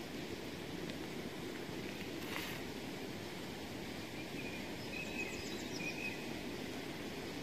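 Steady outdoor background hiss of open air, with a short rustle about two seconds in and a few faint high bird chirps a little past the middle.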